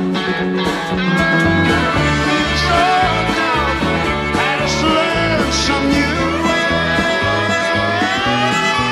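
Rock band playing live: piano, bass guitar and drums keep a steady beat under a lead melody that slides up and down between notes, with no singing.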